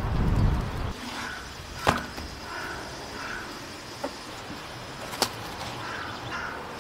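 Wind rumbling on the microphone for the first second, then outdoor ambience with a few short bird calls and two sharp knocks.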